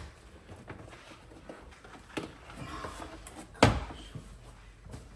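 Plastic engine-bay parts knocking and clunking as a stock air filter box is worked out past the fuse box, with a few knocks and one loud clunk about three and a half seconds in.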